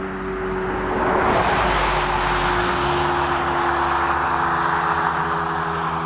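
A car passes close by with loud tyre and road noise, swelling from about a second in and easing off near the end. Under it the Federal Signal Model 7 siren holds a steady tone that slowly drops in pitch as it winds down after its alert cycle.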